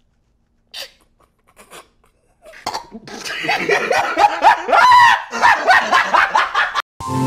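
A man's stifled laughter bursting out after a near-silent start, as long high-pitched squealing laughs that rise in pitch. Electronic music cuts in at the very end.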